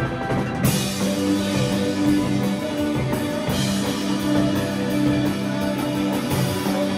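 Live rock band playing: electric guitars over a drum kit, with cymbals coming in about half a second in.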